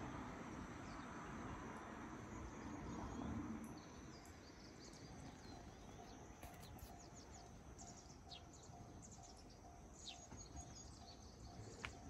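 Faint outdoor ambience: small birds chirping in short, high, falling calls over a low steady background noise. From about five seconds in, a faint tone pulses about twice a second.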